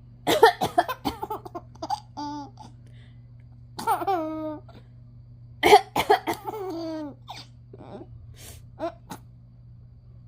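Five-month-old baby laughing in a series of bursts, the longest just past the middle, then trailing off into a few short giggles near the end.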